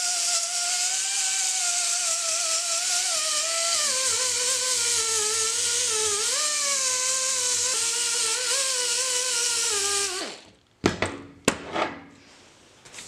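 Die grinder with a small sanding disc smoothing a brazed joint on a lathe handle casting: a steady high whine over a hiss, its pitch dipping and wavering as the disc is pressed into the metal. It winds down and stops about ten seconds in, followed by a few sharp knocks.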